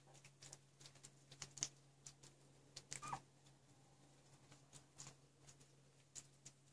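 Near-silent room with a low steady hum and scattered faint ticks and rustles; about three seconds in, one brief faint squeak from a sleeping week-old puppy.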